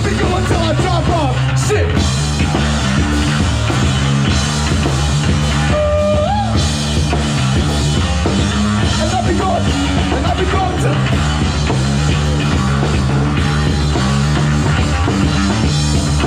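Live band jamming rock music: drum kit, a stepping bass line and sliding, bent lead notes.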